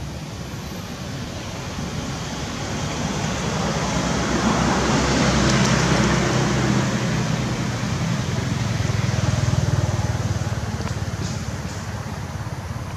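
A motor vehicle passing by: engine hum and tyre noise swell up, peak about halfway through, swell once more and then fade away.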